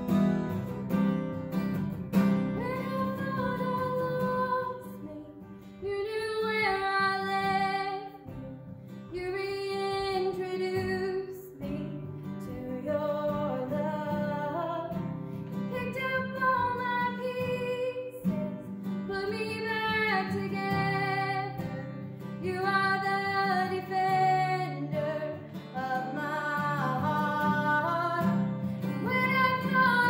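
A woman singing a worship song to a strummed acoustic guitar. The guitar plays alone briefly, and her voice comes in about two seconds in, then carries on in phrases.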